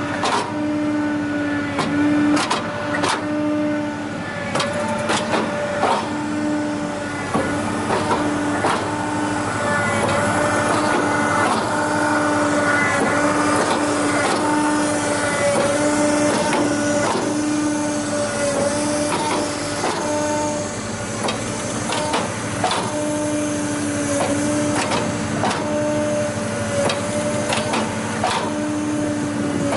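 Hydraulic briquetting press making sawdust briquettes: a steady pump-and-motor hum that breaks off briefly every second or two with the press strokes, with frequent sharp clicks and knocks throughout.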